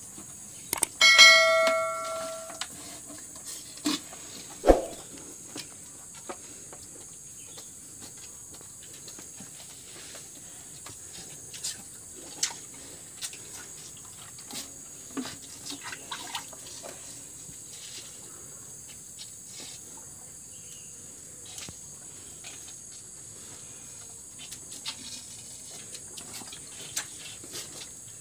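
Cow and calf drinking water from a plastic bucket: scattered slurps, sucks and small splashes over a faint steady hiss. About a second in, a bright bell-like chime rings out, and a single sharp thump comes a few seconds later.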